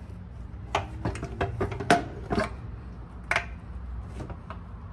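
Irregular clinks and knocks of a motorcycle's fuel tank and surrounding parts being worked free from the frame by hand, about eight in all, the loudest just before two seconds in. A low steady hum runs underneath.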